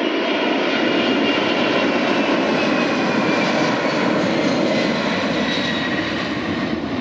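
Boeing 747 freighter's four jet engines at takeoff thrust: a loud, steady roar with a high whine that slowly falls in pitch as the aircraft climbs away.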